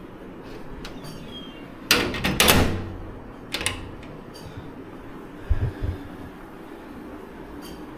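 Doors being handled by hand: a clattering rattle about two seconds in, a sharp click about a second later, and a pair of dull thumps a little after the middle.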